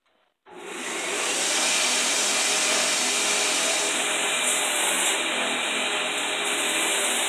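Wood-framed belt grinder starting up about half a second in: its electric motor and sanding belt come up to speed, then run steadily while a hardened steel knife blade is ground against the belt. The sound changes about four seconds in, as the blade is worked on the belt.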